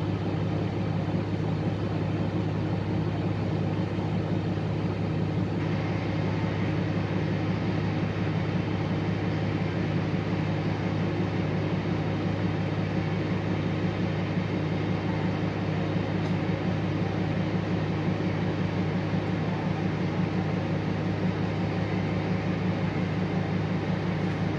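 City bus engine idling while the bus stands still, heard from inside the passenger cabin as a steady low hum.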